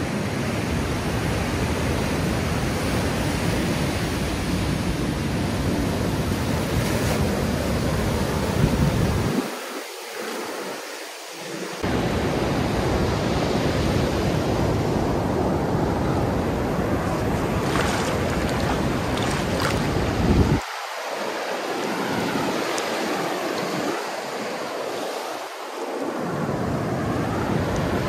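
Ocean surf breaking on a beach: a steady rush of waves. Wind rumbles on the microphone and drops away twice, about ten seconds in and again after about twenty seconds.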